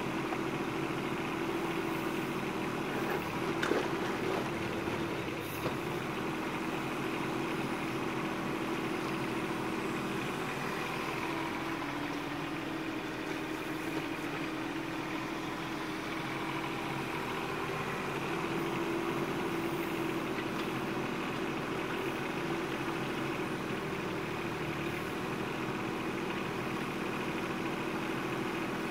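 Bobcat 418 mini excavator's diesel engine running steadily as the machine digs and swings its bucket, with a couple of brief knocks a few seconds in.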